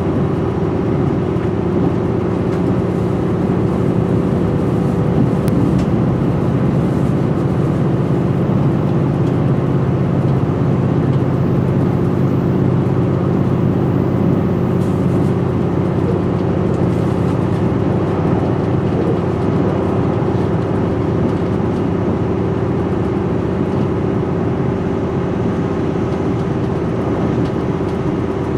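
Steady running noise inside a KiHa 261 series diesel railcar at speed: the drone of its diesel engine with a steady hum, over the rumble of wheels on rail.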